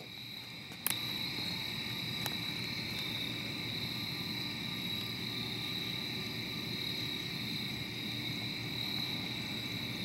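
Steady chorus of night insects, a continuous high-pitched trill, with a single sharp click about a second in.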